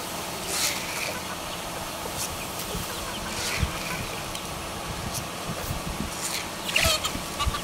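A flock of chickens clucking and calling as they feed on scattered grain, with short scattered calls that grow busier near the end, over a steady background noise and a few low bumps.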